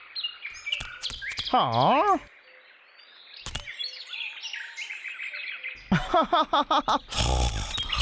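Cartoon sound effects over bird chirps: scattered clicks and chirps, with a big swooping pitch glide down and back up about two seconds in. Near the end a man chuckles and a louder, rougher sound starts.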